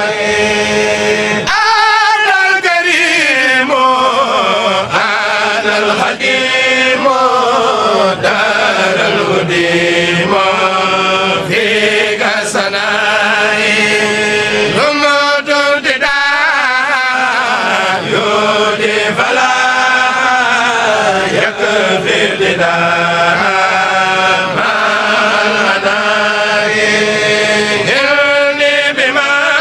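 Kourel group chanting Arabic religious verse (Sufi khassaid) in long melodic phrases, with a steady low hum underneath.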